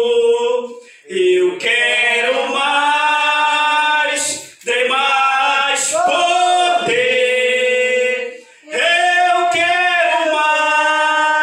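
A man singing a slow hymn unaccompanied into a microphone, long held notes in phrases broken by short pauses for breath.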